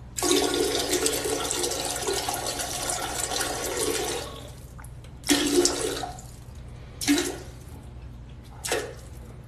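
Toilet flushing: a rush of water with a steady hum in it for about four seconds, followed by three shorter bursts of sound.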